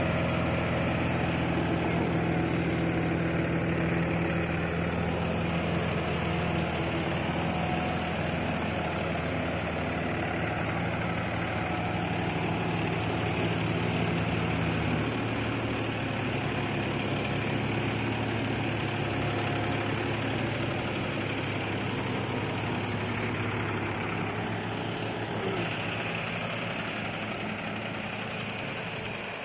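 Diesel tractor engines running steadily under load as one tractor tows another out of the mud on a chain. The low engine note drops away about halfway through.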